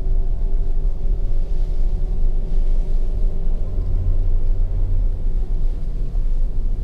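Car driving, heard from inside its cabin: a steady low rumble of engine and road noise with a faint engine hum above it.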